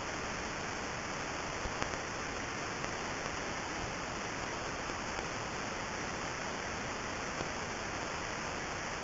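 Radio signal of the Crab pulsar (PSR B0531+21), a neutron star spinning about 30 times a second, converted into sound: a steady static-like hiss with a few faint ticks.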